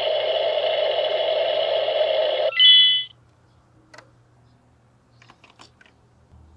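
Tayo toy gas station playing its electronic fuel-pumping sound effect through its small speaker: a steady whirring hiss that cuts off about two and a half seconds in, followed by a short electronic chime. After that come a few faint plastic clicks as the toy nozzle is handled and hung back on the pump.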